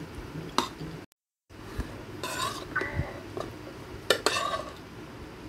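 A metal spoon and fork clink and scrape against a plate of rice while eating. There are several sharp clinks, two of them close together near the end. The sound cuts out completely for a moment about a second in.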